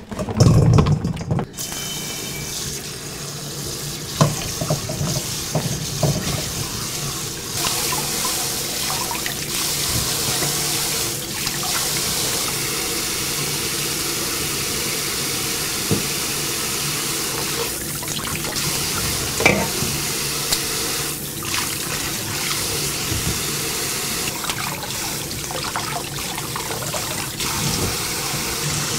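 Kitchen tap running into a stainless steel bowl in a steel sink as vegetables are rinsed by hand, with a few sharp knocks and clinks against the bowl. In the first second or so, a louder clatter as cherry tomatoes are tipped from a plastic tub into the bowl.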